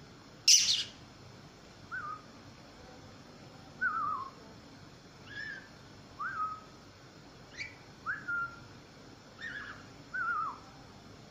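Budgerigar giving one loud sharp chirp about half a second in, then a string of short whistled notes, about one a second, several of them sliding down in pitch at the end.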